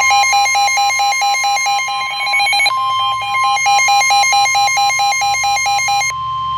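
Emergency alert tones ahead of a broadcast severe thunderstorm warning: a steady, unbroken alert tone with a fast electronic beeping over it, about four beeps a second. The beeping stops about six seconds in while the steady tone holds.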